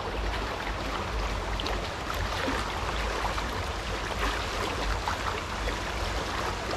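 River water flowing steadily over a shallow stretch, a constant rushing with small splashes and trickles.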